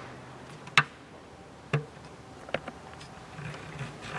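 Footsteps on a dusty concrete floor: four separate steps about a second apart, the first the loudest, over a faint steady low hum.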